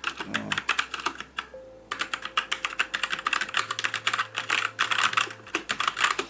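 Fast typing on a Philips G614 mechanical keyboard with brown switches: a rapid, dense run of key clicks, with a brief pause about one and a half seconds in.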